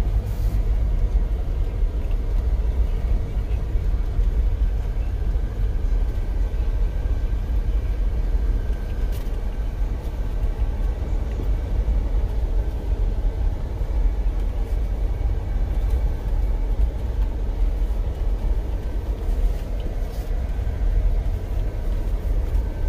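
Jeep driving on a gravel road, heard from inside the cabin: a steady low rumble of engine and tyres.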